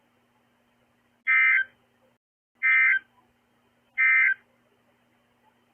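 Three short, harsh, buzzy Emergency Alert System (SAME) digital data bursts, about a second and a half apart, the encoded tones that open or close a broadcast emergency alert.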